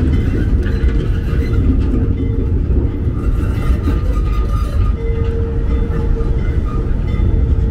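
A set of new R211A subway cars rolling slowly along yard track: a steady heavy low rumble with a faint steady whine over it.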